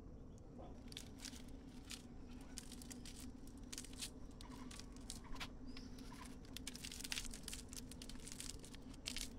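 Green leaves rustling and crackling as they are crumpled and pushed into the open ends of bamboo tubes to plug them, in a quick run of crackles.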